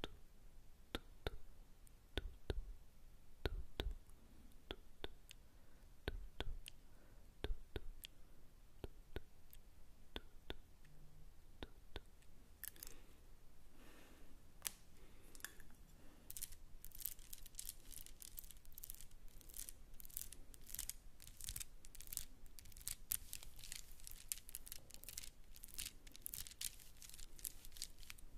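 Close-miked ASMR 'invisible trigger' sounds made to imitate objects: scattered soft clicks, some with a low thud. About halfway through they turn into a dense run of crisp crackling clicks, like crinkling or snipping.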